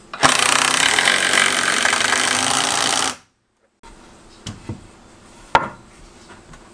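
Cordless driver running hard for about three seconds, driving a screw into a wooden framing stud, then cutting off abruptly. After a short gap, a few light knocks of wood framing being handled.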